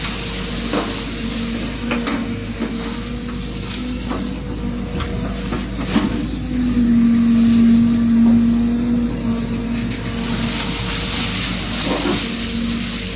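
An excavator's diesel engine runs steadily while digging, with scattered knocks and clanks. About six and a half seconds in the engine grows louder and stronger for a couple of seconds, then drops back.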